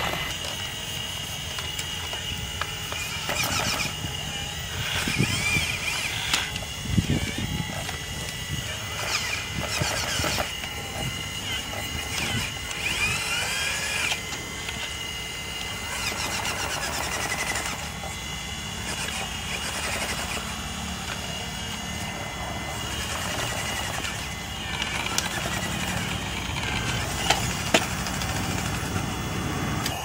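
Radio-controlled hydraulic model excavators working: a steady high whine from the hydraulic pump, with motor whines that rise and fall in pitch as the arm and bucket move, and a few sharp clicks.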